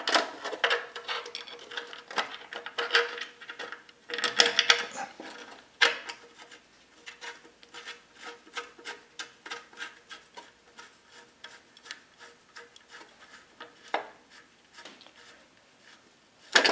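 Small metal clicks, scraping and rattling as a steel change-gear arm is fitted by hand onto its bracket on a lathe's gear end, busiest in the first six seconds, with a sharper clank near the end.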